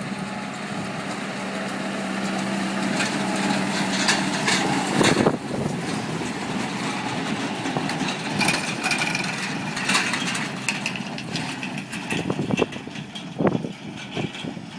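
Farm machinery at work in the hay field: a tractor engine running with knocks and clatter from the machinery. A steady hum drops away about five seconds in, after a loud knock.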